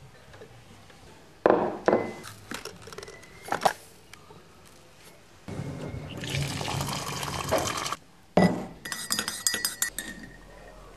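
A ceramic mug clinks against a wire dish rack and glassware as it is lifted out, then water runs from a tap into the mug for about two and a half seconds. A quick run of sharp clinks on the mug follows near the end.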